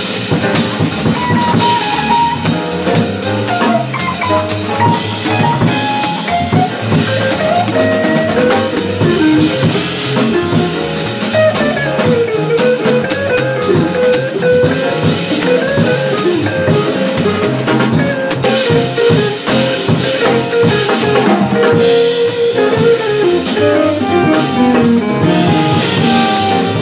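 Live jazz group of guitar, piano, upright bass and drum kit playing, a melodic line weaving over the bass and drums.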